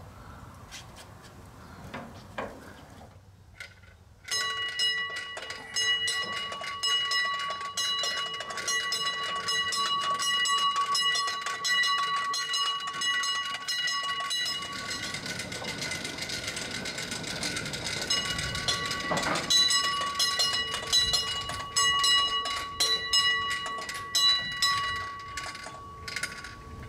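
A hand-pushed steel railway turntable rotating on its track. It gives a steady high-pitched metal-on-metal squeal mixed with many clicks and knocks, starting about four seconds in and stopping just before the end.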